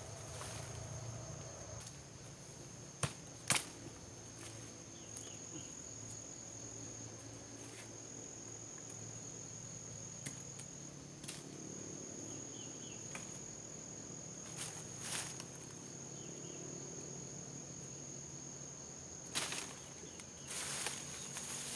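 Insects chirring in one steady high-pitched tone, with scattered sharp clicks and rustles; two loud clicks come about three seconds in and a cluster near the end.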